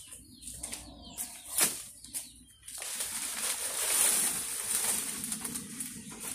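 Dry, dead banana leaves rustling and crackling as they are grabbed and pulled. A few short rustles come first, then a continuous rustle from about three seconds in.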